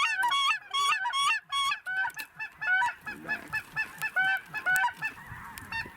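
A flock of snow geese calling, many short high-pitched honks overlapping in a constant chatter, densest in the first two seconds and thinning toward the end.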